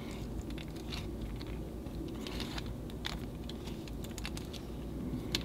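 Faint, irregular small clicks and ticks of fingers gripping and twisting the hard rubber body and parts of a vintage safety fountain pen, with one sharper click near the end.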